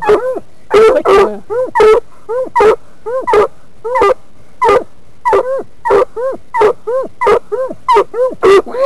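Walker coonhound barking in a fast, unbroken run of short, sharp yelping barks, about three a second, each rising and falling in pitch.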